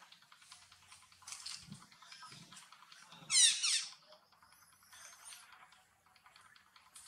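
A monkey eating a ripe mango, with faint wet chewing and smacking clicks. About halfway through, a short high-pitched squeak made of quick repeated chirps stands out as the loudest sound.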